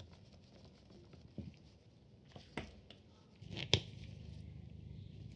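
Small metal tools clicking and tapping against camera body parts and the lens mount, with a few sharper ticks, the loudest about three and a half seconds in. A steady low hum comes in at about the same point.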